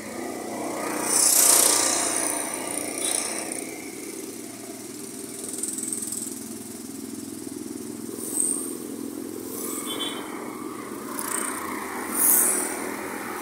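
Outdoor traffic noise: a steady rush of passing road vehicles, swelling louder about a second and a half in and again near the end.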